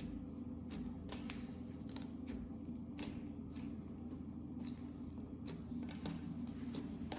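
Clear slime being squished and worked by hand, giving irregular small clicks and pops, several a second.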